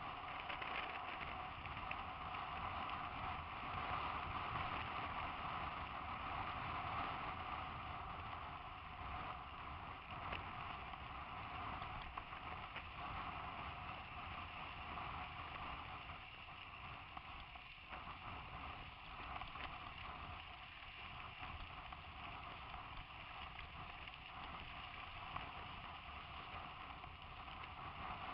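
Mountain bikes riding in a group over a dusty dirt track, heard from a helmet-mounted camera: a steady rolling noise of tyres on loose dirt with a constant low clatter of jolts.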